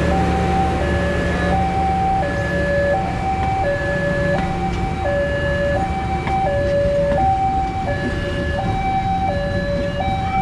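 Level-crossing warning alarm sounding a two-tone high-low signal, about one cycle every second and a half, over the low rumble of passenger coaches rolling past on the track.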